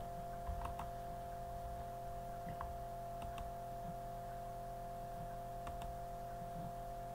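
Steady electrical hum with a few faint clicks scattered through it, about five in all.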